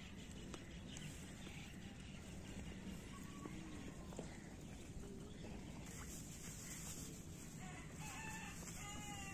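Faint calls of village chickens, with a rooster crowing near the end.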